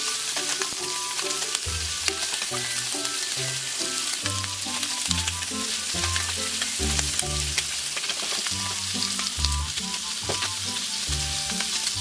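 Chicken wings sizzling steadily as they brown in oil in a nonstick frying pan, with scattered light clicks of tongs turning them.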